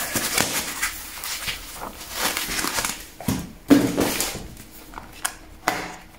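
Foam packaging wrap being pulled off a small cardboard cosmetics box, then the box being handled and its seal picked open: rustling and scraping, with a few sharp taps and clicks in the second half.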